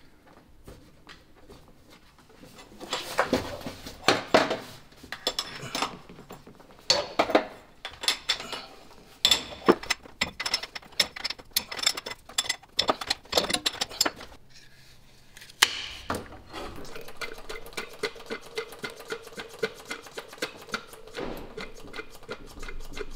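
Irregular metallic clinks and clatters of hand tools against metal fuel-line fittings on a diesel injection pump, in quick clusters. A faint steady hum comes in about two-thirds of the way through, under lighter ticking.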